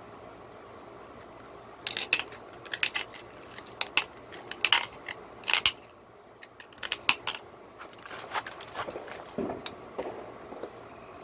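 Cherry quartz being pressure-flaked: a quick, uneven run of sharp clicks and ticks as small flakes pop off the edge under the hand tool, followed near the end by softer scratching as the tool works along the edge.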